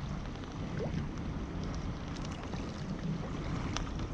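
Wind buffeting the microphone and sea water lapping and splashing against a kayak's hull, with scattered small splashes throughout and a brief rising squeak about a second in.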